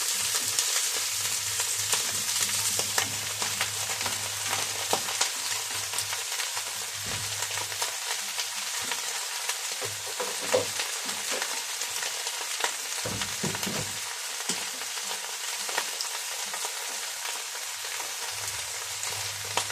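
Sliced ginger sizzling in a little hot oil in a frying pan, stirred with a wooden spatula that ticks and scrapes against the pan now and then.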